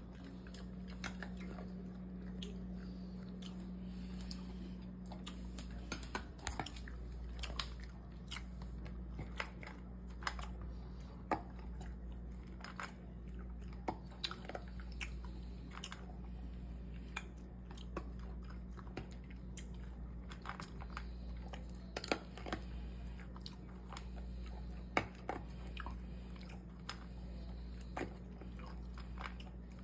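A dog eating dry kibble from a stainless steel bowl, with irregular sharp crunches as it chews. A steady low hum runs underneath, with a tone that is stronger for the first few seconds.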